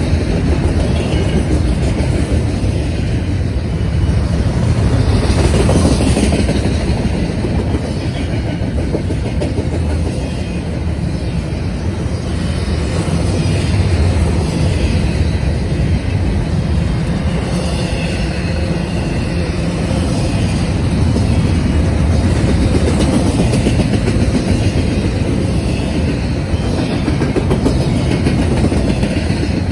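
Double-stack intermodal freight train's well cars rolling past, a steady loud rumble of steel wheels on the rails.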